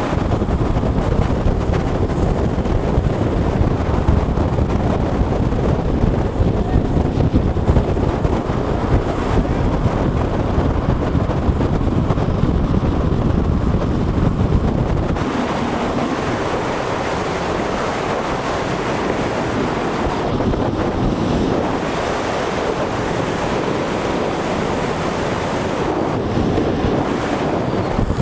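Wind rushing over the microphone, a steady noisy rush with deep buffeting that eases about halfway through.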